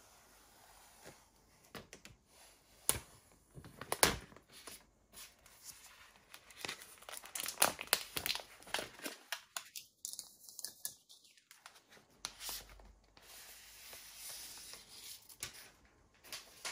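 Protective plastic film being peeled off a new iPad Pro, crackling and crinkling in irregular bursts with sharp snaps, dropping out briefly about ten seconds in before softer crinkling resumes.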